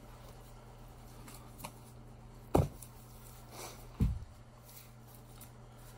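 Two sharp knocks, one about two and a half seconds in and one about a second and a half later, as heavy metal parts of a Meyer plow pump motor (the armature and motor housing) are handled and set down on a workbench, with a lighter click before them over a steady low hum.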